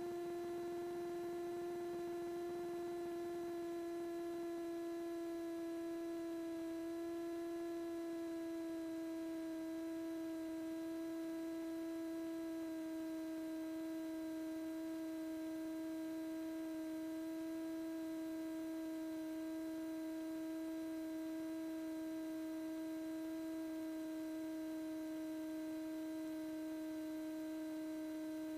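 Steady hum-like whine in the aircraft's radio and intercom audio feed: one pitched tone with several overtones, its pitch sagging slowly.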